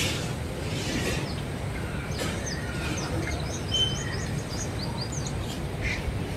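Birds chirping: a run of quick, high, falling notes repeated many times from about two seconds in, over a steady low background rumble.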